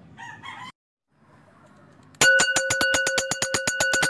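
A metal bell ringing loudly and rapidly, about nine strikes a second over a steady ringing tone, starting about two seconds in: the sound cue for conditioning a pet mouse to go to its box.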